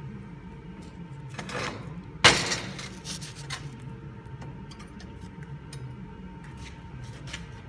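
A concrete building block set down on a steel rod on a metal welding table: one sharp knock about two seconds in, then a few light scrapes and clinks as it is pushed into place.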